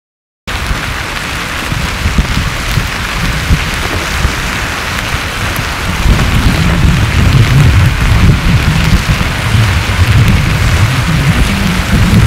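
Slabby pahoehoe lava flow front moving: a steady crackling hiss over a low, uneven rumble that grows louder about six seconds in, with scattered sharp cracks. The scraping comes from cooled crust slabs being dragged along the older solidified flow.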